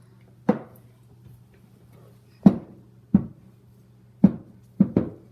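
A series of about six hard knocks as containers and utensils are picked up and set down on a tabletop while someone feels around blindfolded. The last two come in quick succession, over a steady low hum.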